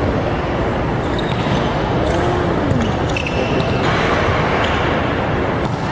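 Steady ambient noise of a large indoor sports hall during a volleyball game, with a few short squeaks and faint knocks on the wooden court.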